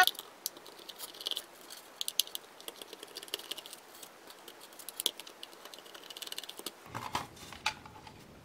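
Light, irregular clicks and scratches of hard plastic being pried and handled: the orange top cover of a Xiaomi Mi robot vacuum's laser distance sensor is worked loose with a thin screwdriver and fingers. A louder scrape-click comes right at the start.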